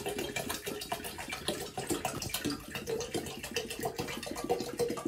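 Water pouring from an upturned plastic water bottle into a large glass jar, gurgling irregularly as it empties. The jar is being filled with water for a batch of water kefir.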